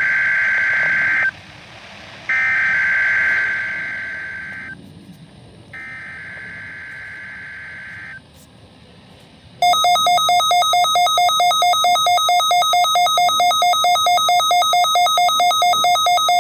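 NOAA Weather Radio SAME header for a Required Weekly Test: three bursts of screeching digital data, each about two seconds long, with the second fading partway. About ten seconds in, a loud, rapidly pulsing electronic alert beep starts and runs for about seven seconds.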